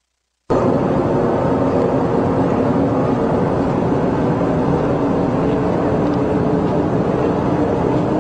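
A steady mechanical drone, several held tones over a rushing noise, cutting in abruptly from total silence about half a second in and running on unchanged.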